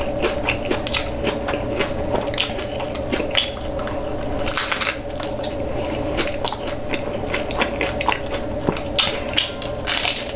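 Close-miked chewing and crunching of hard-shell tacos: a steady run of small crisp clicks, with louder crunches about four and a half seconds in and again near the end.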